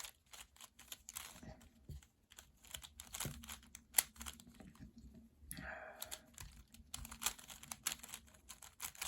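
A ball-shaped 3x3 twisty puzzle cube being turned quickly by hand during a solve: a fast, irregular run of plastic clicks and clacks.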